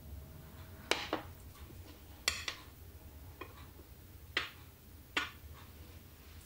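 Metal measuring spoon clinking and tapping against glass as ginger powder is spooned into a glass bowl: several short, light clinks with a brief ring, spread over a few seconds.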